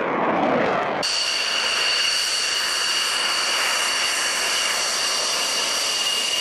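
F-16 fighter jet engine: a rushing roar from the jet in the air, cutting abruptly about a second in to the steady, high-pitched whine of the F-16's engine as it taxis on the runway, with two piercing whistle tones held steady.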